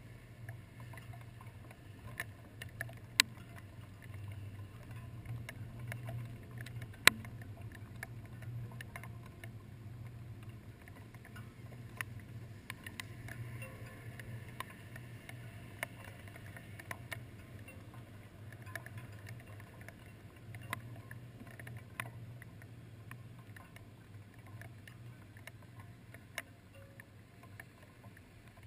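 Raindrops ticking irregularly on the camera housing, with two sharper, louder hits about 3 and 7 seconds in, over a steady low hum.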